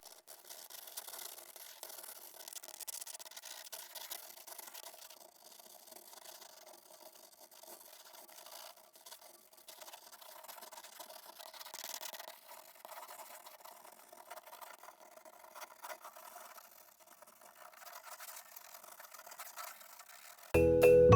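Faint, uneven scratchy rubbing of a coloring tool stroked back and forth on paper as a picture is colored in.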